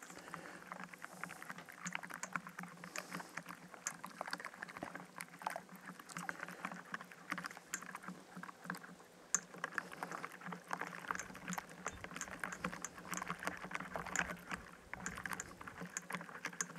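Wire whisk beating a thick mango-purée, curry and olive-oil marinade in a stainless steel bowl: rapid, irregular clicking and scraping of the wires against the metal.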